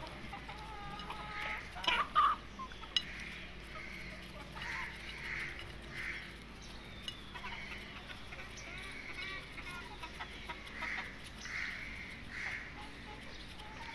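Young chickens clucking softly, short calls every second or so, with a few thin peeping notes while they feed from a dish. A few sharper, louder sounds come about two seconds in.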